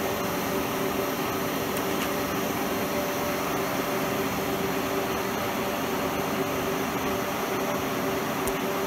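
Schaublin 52 milling machine running with the spindle turning and the power table feed engaged: a steady hum with a gear whine, a little noisy.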